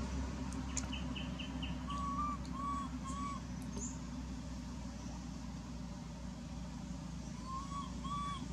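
Birds calling over a steady low hum: a quick run of five short high chirps, then three short whistled notes in quick succession about two seconds in, and the same three notes again near the end.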